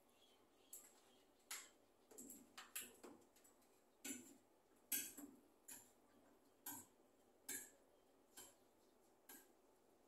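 Faint dry crackles and clicks of grass nest lining as scaly-breasted munia nestlings shift and squirm in the nest: a string of short, sharp clicks, irregularly spaced, roughly one or two a second.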